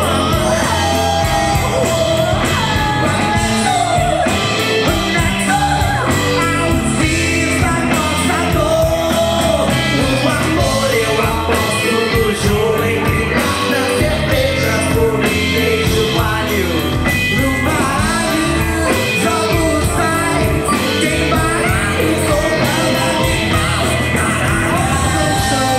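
A live Brazilian popular music (MPB) band playing with singing: vocals over a steady band backing of guitar, bass, keyboard, drums and percussion.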